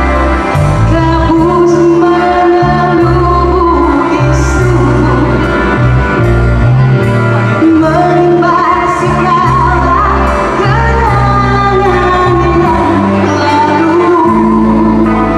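Live band performance of a Malay pop song, with a woman singing lead into a microphone over electric guitar and bass guitar, amplified through a PA in a large hall.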